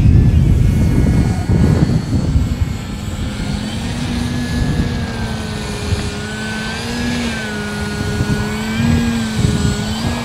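Electric ducted-fan RC model jet flying overhead, its whine wavering slowly up and down in pitch as it moves and the throttle changes. Wind buffets the microphone with a low rumble for the first couple of seconds.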